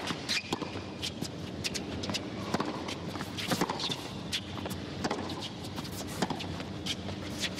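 Tennis rally on a hard court: a series of sharp racquet strikes on the ball and bounces, several a second, with players' footsteps, over steady background noise.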